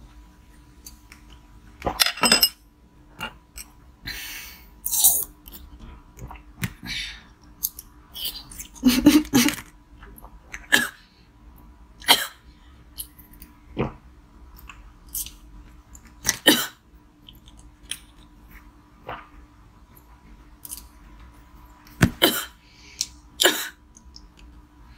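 Close-miked mouth sounds of eating jelly from a glass and from plastic syringes: wet sucking and chewing with sharp crackly bites at irregular intervals, over a faint steady hum.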